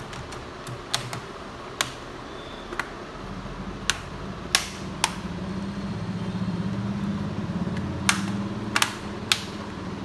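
About a dozen sharp, irregular clicks over a low hum that swells from about three seconds in and eases near the end.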